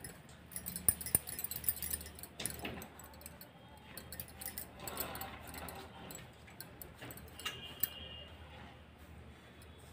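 Light metallic clinks and taps of a steel fork against a steel plate while dough is handled, a cluster of small clicks in the first few seconds and a few scattered ones after.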